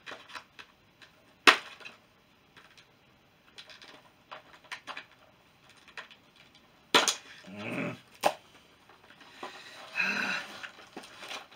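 Scissors snipping and clicking at zip ties on a toy figure's cardboard and plastic packaging: scattered sharp snaps, the loudest about a second and a half in and about seven seconds in, among lighter rustling of the box. Two short strained grunts of effort come near the middle and near the end.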